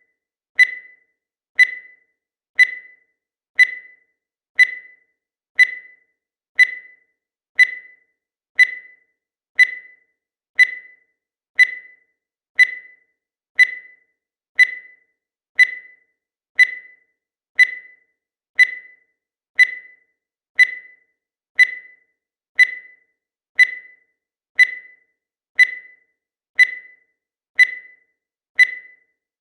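Digital timer beeping once a second: a short, high beep that dies away quickly, repeated evenly about every second as the count runs down.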